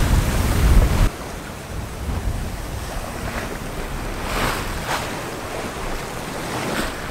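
Wind buffeting the microphone for about the first second, then sea rushing past the hull of a sailing yacht under way in a fresh breeze, with several swishes of waves breaking alongside.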